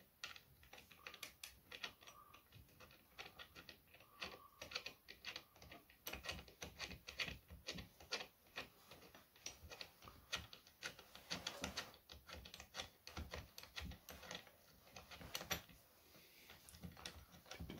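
Faint, irregular small clicks and taps of metal parts handled by hand: screws and the aluminium mounting plate of an angle-grinder chainsaw attachment being fitted onto the grinder's head.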